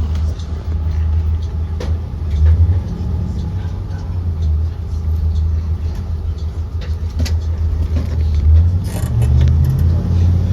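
Cabin sound of a 2023 Blue Bird Vision school bus running, its Ford 7.3L V8 giving a steady deep rumble. Scattered light clicks and rattles sit over it.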